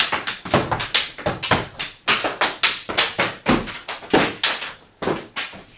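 Rattan eskrima sticks clacking in rapid, irregular flurries of double-stick strikes, about four sharp knocks a second, wood on wood and on padded armour and helmets.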